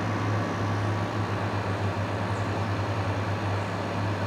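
Frigidaire 50-pint dehumidifier running steadily: its fan blowing air over a low, constant compressor hum, with the unit dehumidifying and its coil just starting to drip water.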